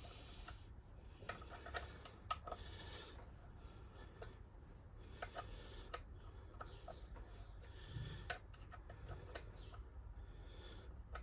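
Faint, irregular light clicks and ticks of a hand tool tightening a bolt into a freshly fitted Helicoil thread insert, the thread now holding.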